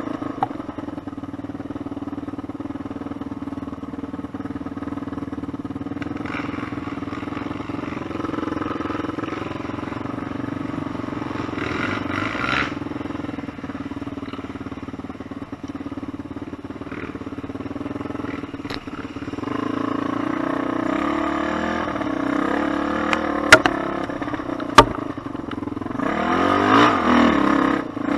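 Suzuki Z400's single-cylinder four-stroke engine running steadily on a trail ride, revving up and down near the end. Two sharp knocks about a second apart come in the last third.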